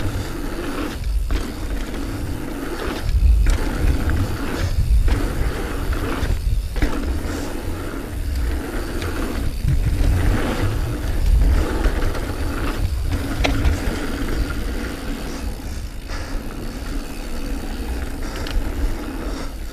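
Diamondback Release 3 mountain bike descending fast singletrack through berms: knobby tyres rolling and scrubbing on dirt and the bike rattling, with a heavy, gusting wind rumble on the action camera's microphone.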